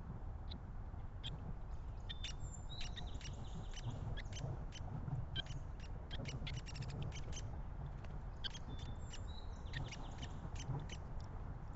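Small backyard birds chirping, with many short, sharp high ticks and a few brief high chirps, over a steady low rumble.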